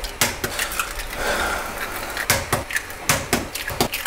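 Eggs being cracked on the rim of a wok: a quick run of sharp taps and shell cracks, with a short hiss a little after a second in.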